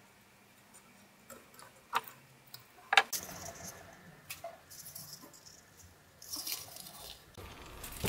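Hands working hand-stitched leather: two sharp clicks about two and three seconds in, then spells of rustling and rubbing as the leather and thread are handled.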